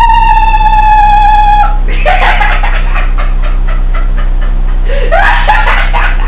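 A steady electronic tone, sinking slightly in pitch, cuts off near the two-second mark; then the hologram's voice breaks into laughter, a run of quick, rhythmic chuckles.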